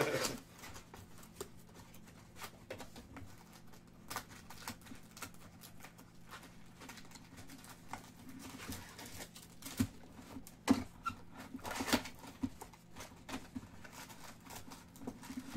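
A cardboard trading card box being opened by hand: scattered soft clicks, scrapes and brief tearing as the lid flap is pulled up, over a faint steady hum.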